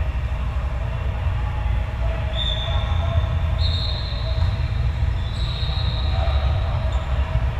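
Athletic shoes squeaking on the court floor in several short high squeals, each about a second long, over a steady low rumble filling the large hall.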